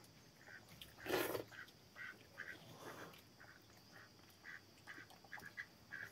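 A run of short, quick animal-like calls, a few a second, over faint sounds of hands working rice on steel plates; one louder noisy burst about a second in.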